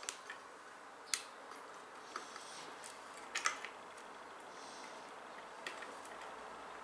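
A few sharp plastic clicks and light handling noises of computer parts being fitted by hand, the loudest a quick double click about three and a half seconds in.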